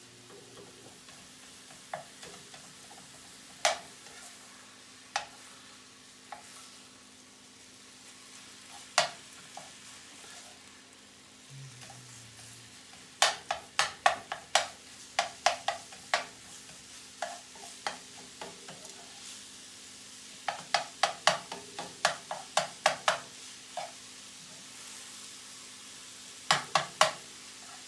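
Sausage frying in a pan with a faint sizzle while a utensil is stirred through it and knocked against the pan. Scattered single clicks at first, then quick runs of clicks about halfway through and again near the end, over a steady low hum.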